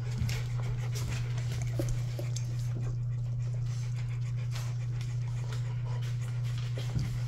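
Rottweiler and her puppies panting and gnawing at a rubber chew toy, with soft scattered mouthing and scuffling noises, over a steady low hum.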